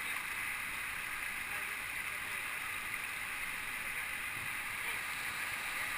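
Steady rush of water from a waterfall, an even hiss with no breaks.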